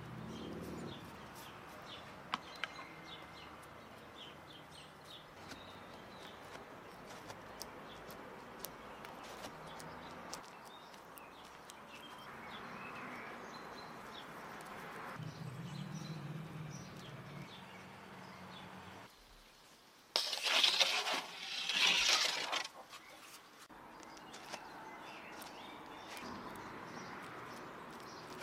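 Quiet outdoor background with faint bird chirps and small clicks of hands and a spoon working dough on a wooden board. About twenty seconds in come two loud rustling, hissing noises, each lasting about a second.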